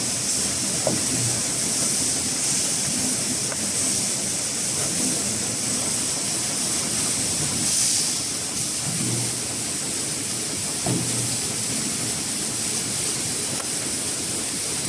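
Maxi-roll kitchen towel heat-shrink packing machine running: a steady high hiss with a few short, low knocks from its mechanism.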